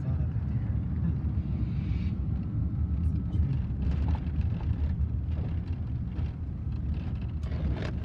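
Steady low rumble of a car driving along a road, heard from inside the cabin: engine and tyre noise.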